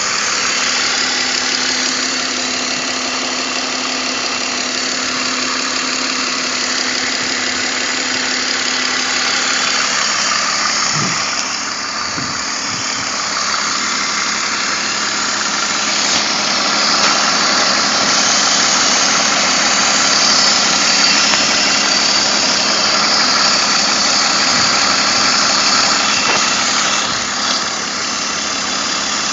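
BMW M54 inline-six petrol engine idling steadily.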